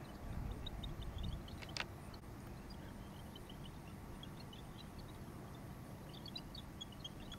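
Night-time outdoor ambience: a steady low rumble under faint, scattered high chirps, with one sharp click about two seconds in.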